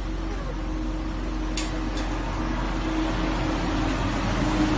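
Steady mechanical hum with a low rumble and a constant tone, with a single brief click about a second and a half in.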